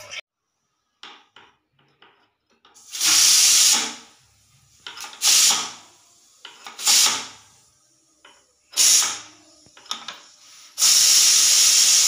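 Aluminium pressure cooker's weight valve releasing steam in five loud hissing bursts, the last one the longest, with a few faint ticks before the first.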